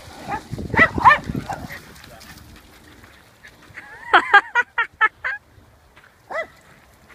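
Dogs barking: a couple of barks over splashing as a dog wades out of shallow river water, then a quick run of about six sharp barks around four seconds in, and a single bark near the end.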